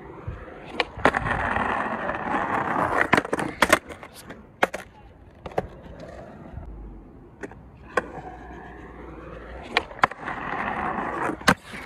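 Skateboard wheels rolling on concrete, the rumble swelling twice as the rider builds speed, with scattered sharp clacks of the board. There is a clack about ten seconds in as he ollies toward a ledge, and a loud clack near the end.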